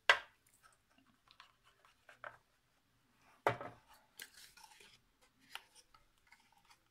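Hands handling a folded box of stiff paper and a liquid glue bottle: a sharp click right at the start, then faint scattered taps and paper rustles, with another sharp click about three and a half seconds in.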